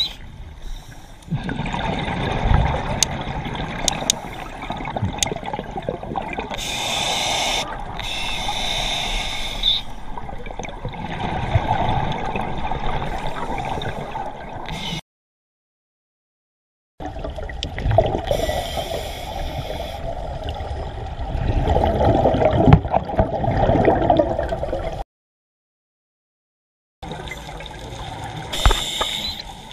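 Scuba diver breathing underwater through a regulator: short hissing inhalations alternating with longer rushes of exhaled bubbles. The sound cuts out completely twice, for about two seconds each time.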